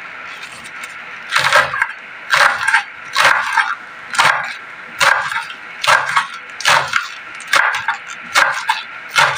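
Kitchen knife chopping pechay (bok choy) leaves on a wooden cutting board: a steady rhythm of about ten cuts, a little under one a second, starting about a second in.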